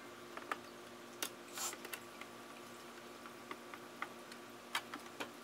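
Faint, scattered clicks and a short scrape of a hand screwdriver and a metal mounting bracket working against the plastic housing of an LED light fixture as screws are driven in.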